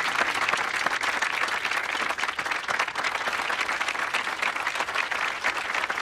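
A crowd applauding: many people clapping steadily and densely.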